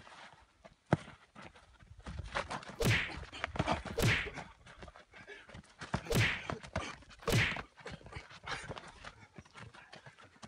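Feet shuffling and scuffing on gravelly dirt as two men spar, with four louder sharp scrapes over a few seconds, one of them as a kick is thrown.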